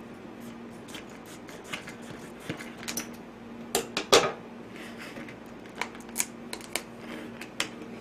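Scattered clicks and crinkles of scissors and a plastic food package being handled on a tabletop, with a few sharper clacks about four seconds in as the scissors are set down.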